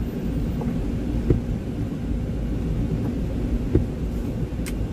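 Steady low rumble of a Freightliner Cascadia semi-truck's engine heard inside the cab, with two dull thumps about two and a half seconds apart and a sharp click near the end.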